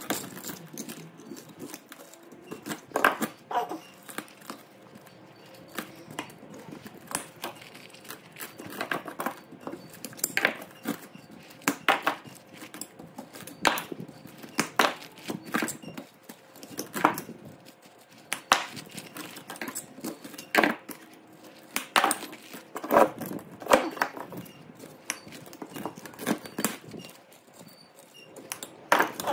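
Irregular metallic knocks and clinks of hand tools striking and working the stator of a burnt three-phase electric motor while its old copper winding is removed. Sharp hits come singly or in quick pairs every second or two, with quieter clatter in between.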